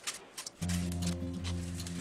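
Craft knife scraping and slicing through polyfoam for about half a second, then background music comes in with sustained low chords and covers the cutting.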